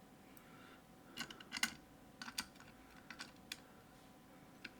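Light, irregular metallic clicks and taps of small lock parts (pins and springs from a disassembled dimple lock) being handled and set down, with the loudest cluster about a second and a half in.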